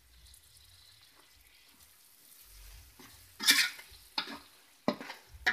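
A steel spoon stirring in a metal kadai, scraping the pan four times in the second half. Underneath is a faint sizzle of onions and fresh mint leaves frying in oil.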